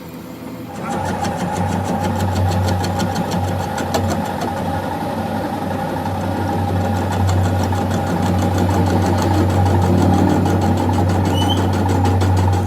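A workshop machine switches on about a second in and runs steadily, with a strong low hum and a fine, even ticking rhythm over it.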